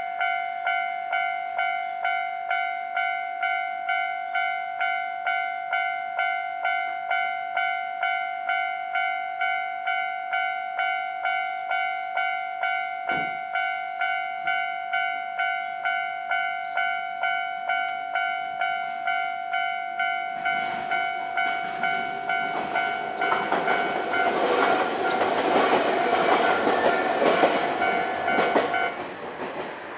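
Railway level-crossing warning bell ringing steadily, about two strokes a second at a fixed pitch. About twenty seconds in, a Nankai Kada Line electric train begins passing over the crossing, its rumble building and swelling to the loudest part, and the bell stops shortly before the end.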